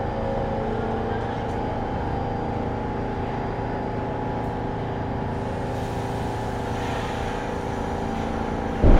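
Steady low rumble and electrical hum of a New York City subway train on an underground platform, with a sudden loud thump near the end.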